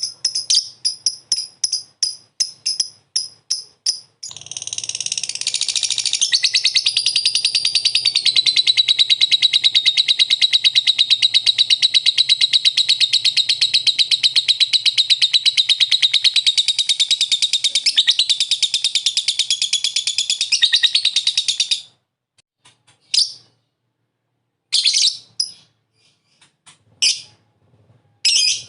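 A lovebird giving its 'ngekek' song. It starts with a run of quick repeated chirps, about four or five a second. About four seconds in it breaks into one long, fast, unbroken chattering trill lasting some seventeen seconds, which stops abruptly. A few short scattered chirps follow.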